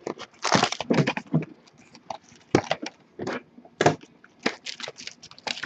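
Plastic wrap and cardboard of a sealed Topps Strata trading-card box crinkling and crackling as it is unwrapped and its lid flipped open, in several sharp rustling bursts: a cluster about a second in, then single ones near the middle and near the end.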